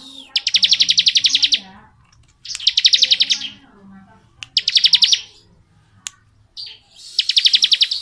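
Caged bar-winged prinia (ciblek) singing its 'ngebren' song: fast, buzzing, machine-gun-like trills, four bursts of about a second each with short pauses between.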